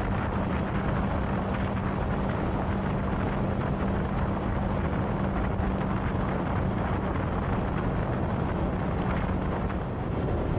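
Motorcycle cruising at a steady speed, heard from on the bike: a constant low engine drone under heavy wind and road rush. The engine note drops away near the end.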